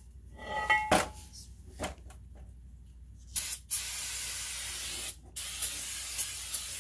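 A few light metallic clinks, then an aerosol can of brake cleaner spraying onto a brake rotor: a short burst, then two long hissing sprays with a brief break between them.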